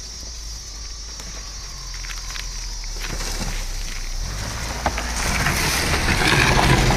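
A 1999 Subaru Forester approaching on a gravel track and passing close by. Its flat-four engine and its tyres on the gravel grow steadily louder, with a few scattered clicks.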